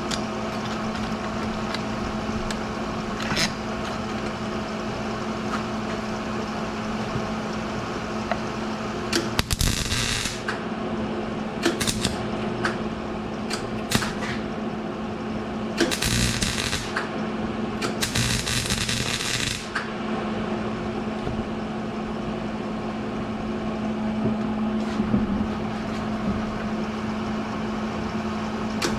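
Short bursts of an electric welding arc, about six of them, each a second or two of hiss, as a broken stud is welded onto a steel vent wing window frame. A steady low electrical hum runs underneath.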